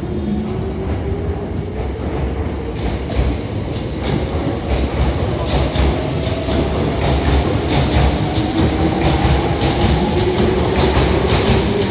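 Hankyu 5100 series electric train pulling away and gathering speed: its motor whine rises steadily in pitch, a second rising whine joins partway through, and the wheels clack over rail joints more and more often.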